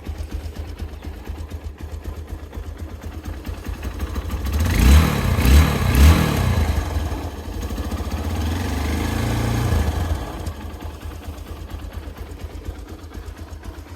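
Hero Impulse motorcycle's single-cylinder engine through its stock exhaust, idling, then revved in three quick blips about five seconds in and held at higher revs for a couple of seconds before dropping back to idle.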